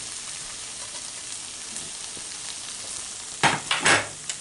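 Bolognese meat sauce simmering in a frying pan with a steady sizzle. A couple of loud clattering knocks come about three and a half seconds in.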